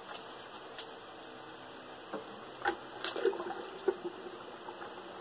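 Faint water sloshing in a bucket, with a few light knocks about halfway through, as a small submersible water pump is set down into the water and pressed onto the bottom by its suction cups.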